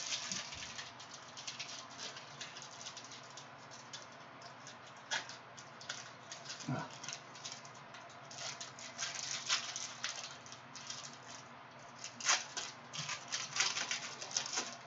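Crinkling and crackling of a Prizm cello pack's wrapper being torn open and handled, in irregular runs of short rustles that grow busier in the second half.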